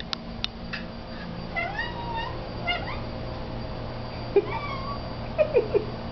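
Domestic cat meowing, a string of short calls that rise and fall in pitch. A few sharp knocks, the loudest sounds, fall in the second half, and there are light clicks near the start.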